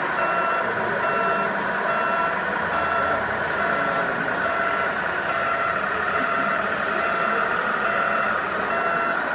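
Reversing beeper of a radio-controlled truck's sound module, a steady run of evenly spaced electronic beeps, over a background hum of noise.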